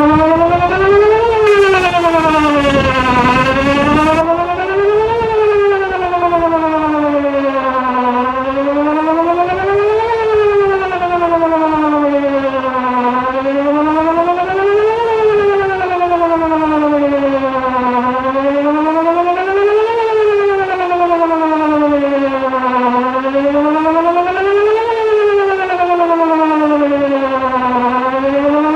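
Whelen WPS 2910 electronic outdoor warning siren sounding a test in a wail at its middle pitch. The tone slowly rises and falls, about once every five seconds. Wind buffets the microphone for the first few seconds.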